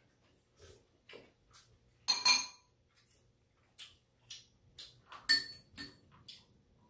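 Spoons and chopsticks clinking against bowls and a round metal tray while eating: a run of light taps, with two louder ringing clinks about two seconds in and again just past five seconds.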